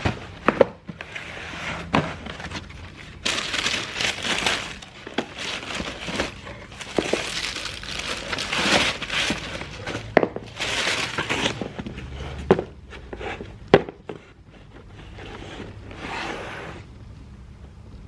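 Close handling sounds: rustling, scraping and crinkling, broken by several sharp clicks or knocks.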